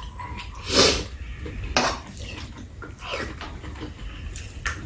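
Metal spoons clinking and scraping against bowls while two people eat, with eating noises in between; the loudest, a short noisy sound, comes about a second in, and a sharp clink comes near the end.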